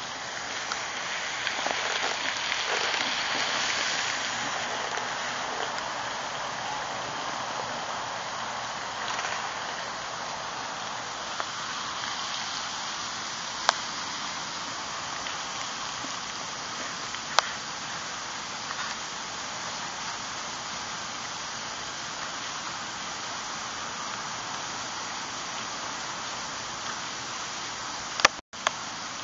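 Steady hissing background noise, a little louder over the first few seconds, with a single sharp click about a third of the way through, another a little past halfway, and a click near the end.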